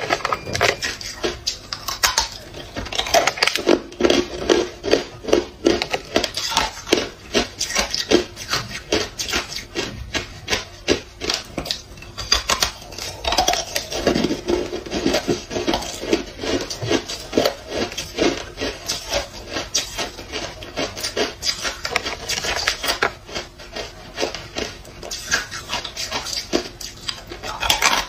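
Hard clear ice being crunched and chewed between the teeth: a continuous run of crisp cracks and crunches.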